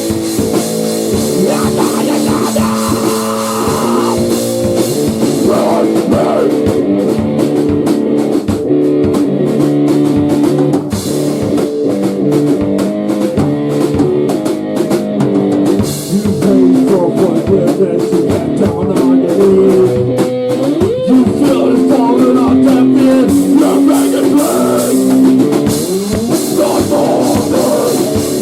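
A rock band playing a grunge/hardcore song: guitar and a drum kit at full volume, with held guitar notes over steady drumming.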